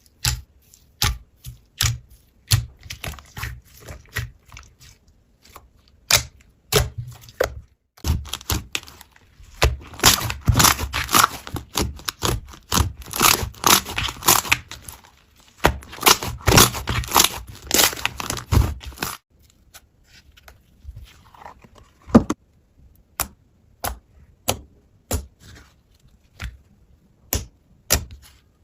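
Slime being played with, giving sharp sticky pops and clicks one after another, thickening into continuous crackling through the middle of the stretch.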